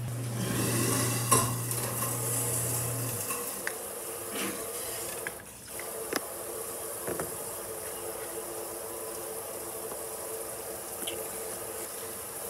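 Light clinks and taps as snack packets and a small plastic jelly cup are set into a ceramic dish, the sharpest click about a second and a half in, over a steady hiss. A low hum stops about three seconds in.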